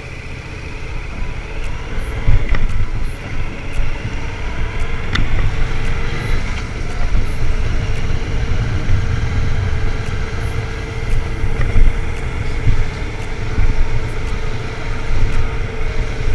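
Yamaha MT-07 motorcycle's parallel-twin engine running while riding, under a heavy rumble of wind on the microphone; the sound gets louder about two seconds in as the bike gets going and then stays steady.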